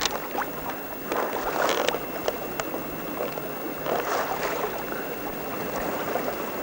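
Water swishing and gurgling along the hull of a sailing boat under way in light wind, swelling twice, with a few light clicks.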